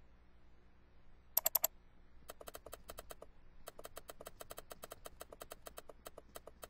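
Mouse-click sounds. First a quick burst of four louder clicks, then after a short break a long run of quieter clicks at about seven a second, with one brief pause.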